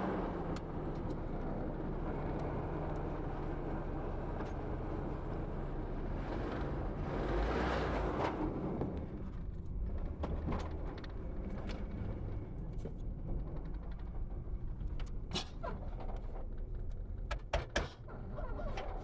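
A car engine, started cold and not yet warmed up, running at low speed while the car is maneuvered. Its revs swell briefly about seven to eight seconds in, and a few sharp clicks and knocks come near the end.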